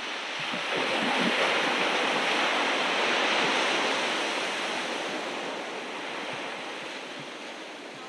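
Ocean surf: a wave breaking and washing up the beach, its rush swelling about a second in and slowly dying away over the next few seconds.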